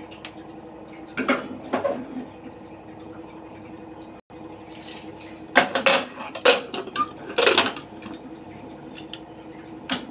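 Aluminium pressure cooker clanking against the pan supports of a steel gas stove as it is set on the burner and its lid and handles are handled: two metal knocks about a second in, then a cluster of knocks a few seconds later, over a steady low hum.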